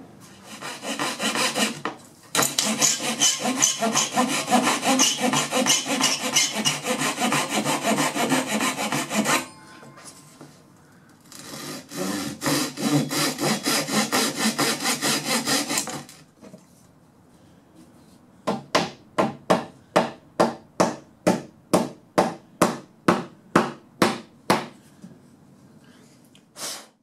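Japanese-style pull saw cutting wood by hand, trimming dovetail joints: two runs of quick, rapid strokes, then slower strokes about two a second in the last part.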